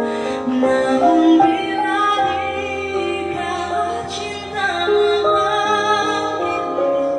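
A woman singing a ballad over instrumental accompaniment, holding long notes.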